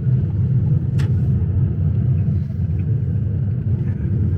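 Car road noise while driving: a steady low rumble, with one short click about a second in.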